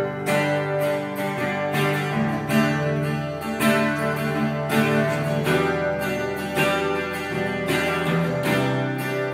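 Acoustic guitar strummed, playing a chord progression with a strong strum about once a second.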